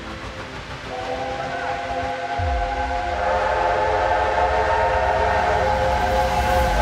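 Steam locomotive whistle on a double-headed pair of USATC S160 2-8-0s, sounding one long, steady, multi-toned note that starts about a second in and holds, over the low rumble of the approaching train, which grows louder.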